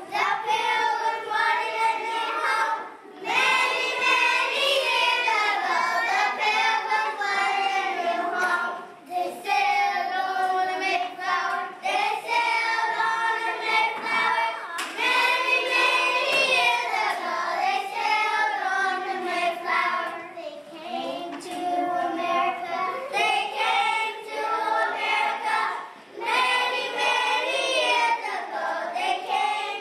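A group of young children singing together, with a few short pauses between phrases.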